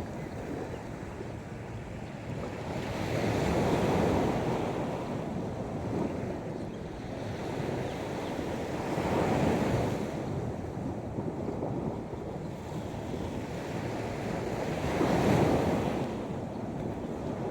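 Sea waves breaking and washing up on the shore, one swell about every six seconds over a steady wash of surf.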